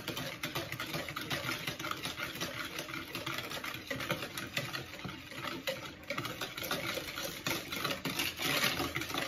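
Wire balloon whisk beating butter and sugar in a mixing bowl: a steady run of quick clicks and scrapes as the wires strike and drag against the bowl.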